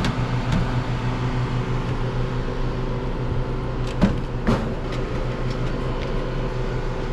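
Walk-in cooler's refrigeration condensing unit running steadily: an even mechanical hum with a fan's airy rush, with two sharp clicks about four seconds in.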